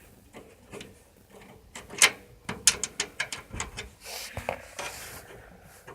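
Screws and metal parts of a desktop PC case being handled: a sharp knock about two seconds in, a quick run of clicks after it, then brief scraping rubs.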